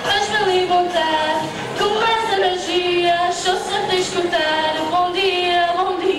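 A woman singing into a handheld microphone, drawing out long notes with a slight waver.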